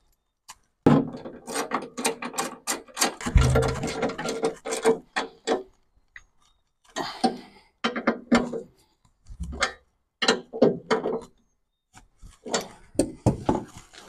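Hand socket ratchet clicking as bolts on a steel bracket are tightened: a long run of rapid clicks for the first few seconds, then several shorter bursts with pauses between them.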